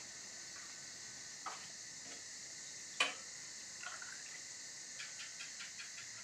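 Steady high chirring of night insects, with a few light clicks and taps: the loudest a sharp click about three seconds in, and a quick run of small ticks near the end.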